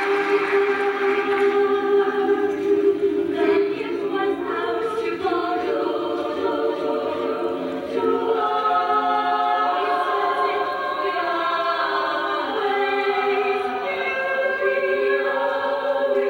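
Women's choir singing held chords in harmony, the notes changing every second or two.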